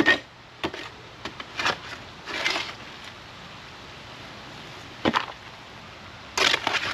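Dirt and ash being dug and scraped out of a backyard fire pit: a series of short, sudden scrapes, a few near the start, a sharp one about five seconds in and another cluster near the end.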